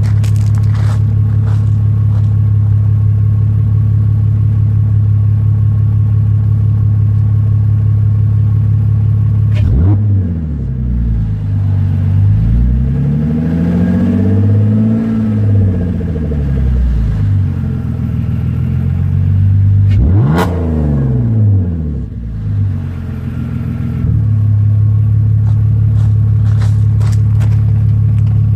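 Car engine exhausting through a homemade muffler, idling steadily. About a third of the way in it is blipped sharply and revved up and down for several seconds. It is blipped again about two-thirds of the way in, then settles back to a steady idle.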